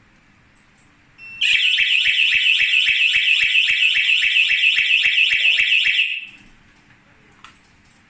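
Siren of an armed home alarm system going off, set off by a door contact sensor being opened: a loud warbling tone repeating about three to four times a second. It starts about a second in and cuts off some five seconds later.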